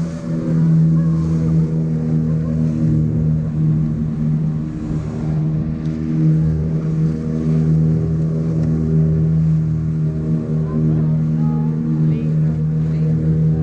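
Small tour boat's engine running steadily under way, a constant drone at an even pitch.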